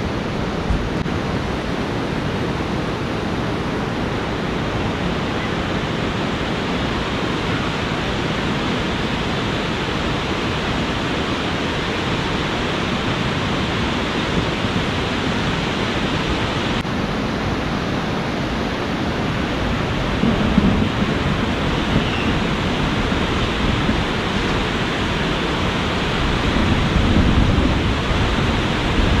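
Steady rush of a fast-flowing river running high, a continuous even noise.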